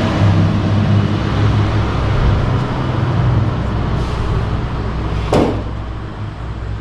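A machine or engine running steadily with a low hum, then a single sharp knock about five seconds in, after which the sound gets quieter.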